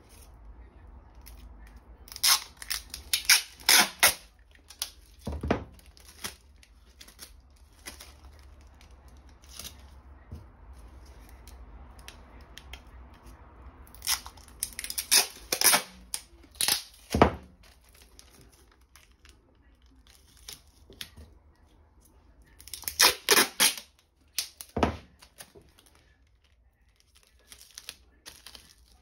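Adhesive tape being pulled off the roll and torn, in three separate bouts of quick ripping strokes.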